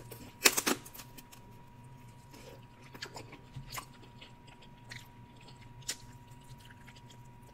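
Close-miked eating of Dungeness crab: two sharp cracks of shell being bitten about half a second in, then quieter scattered clicks of chewing and picking at the shell.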